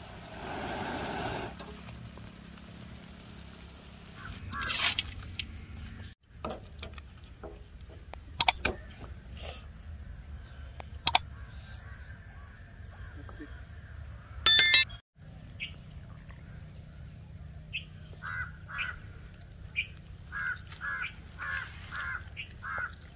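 A frying sizzle dying away in the first second or so after the stove is switched off. Then sparse knocks and clinks, one loud metallic ring about halfway through, and a run of short bird calls near the end.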